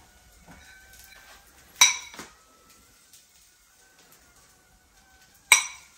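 Metal spoon clinking against dishware as cooked mince is spooned from a bowl into a frying pan: two sharp ringing clinks, about two seconds in and again near the end, with a few fainter taps between.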